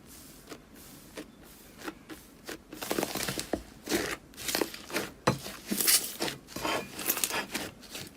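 Slime being squeezed and pressed by hand: a few faint clicks at first, then, from about three seconds in, a fast, irregular run of crackling pops.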